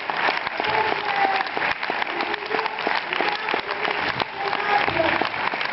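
Audience applauding: dense, steady clapping from a large crowd, with a voice faintly heard over it now and then.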